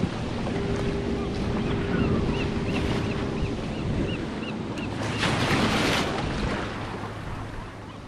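Ocean swell surging and washing around a sea kayak, with wind buffeting the microphone. A louder rush of breaking water comes about five seconds in. A run of short, high chirps repeats a few times a second through the first half.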